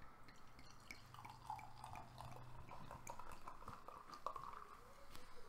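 Peach wild ale being poured from a bottle into a stemmed glass: a faint, wavering pouring sound with small fizzing ticks as the head forms.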